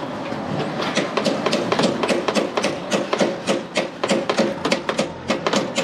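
Rapid, irregular metallic clicking and tapping, several clicks a second, from hand tools working at the exhaust manifold fastenings of a car engine.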